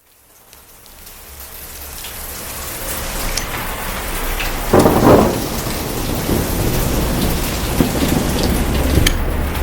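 Steady heavy rain fading in from silence, with a short burst of thunder about five seconds in and a low rumble underneath.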